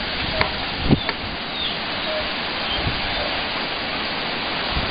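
Strong thunderstorm wind rushing steadily, with two short knocks in the first second.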